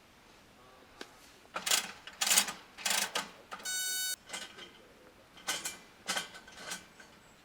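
A series of short clattering handling noises, with a steady beep lasting about half a second a little past the middle.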